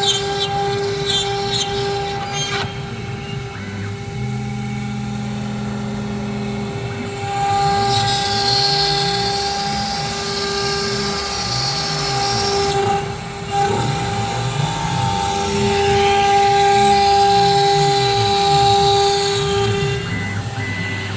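CNC wood router at work: the spindle holds a steady high whine while the axis drive motors sweep up and down in pitch as the head speeds up and slows between moves.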